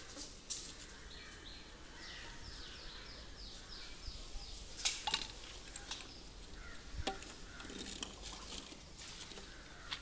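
PVC pipe and fittings being handled and pushed together: a few light clicks and knocks, with a run of quick, high falling chirps about two seconds in.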